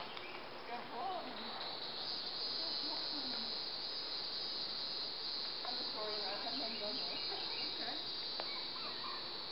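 Steady high-pitched insect chorus, the drone of summer insects, swelling up about a second and a half in.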